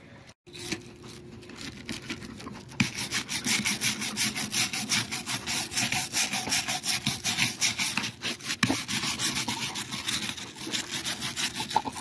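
Wire brush scrubbing dried blanket weed off the stone and concrete of a garden waterfall: rapid back-and-forth scraping strokes, getting louder and faster about three seconds in.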